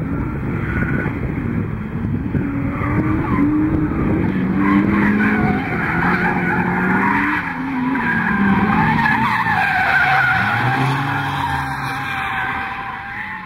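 Drift car sliding through the corners: its engine revs rise and fall while the tyres squeal in long, wavering screeches. The sound fades over the last couple of seconds.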